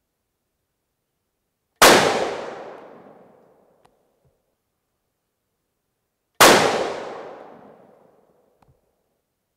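Two rifle shots from a .223 Remington 700 BDL Varmint Special, about four and a half seconds apart. Each is a sharp crack that rings away over about two seconds, and a faint click follows each shot.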